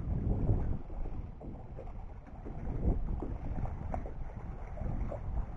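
Wind buffeting the microphone in uneven gusts, with small waves lapping at the water's edge on a choppy lake.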